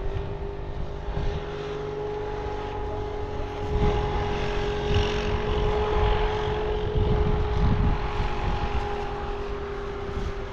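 A steady motor hum holding one unchanging pitch, over low rumbling noise that grows stronger in the middle.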